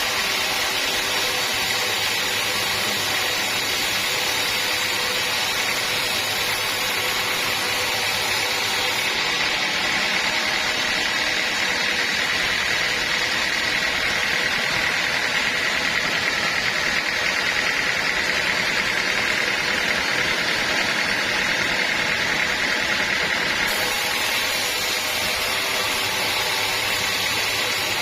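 Sawmill saw running steadily as it works teak logs, with a constant machine noise and a high whine that grows stronger for a stretch in the middle.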